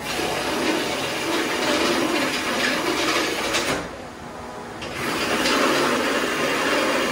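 Handheld power tool cutting through the sheet-metal taillight panel of a 1965 Ford Mustang, a harsh rasping noise. It eases off for about a second near the middle, then cuts again.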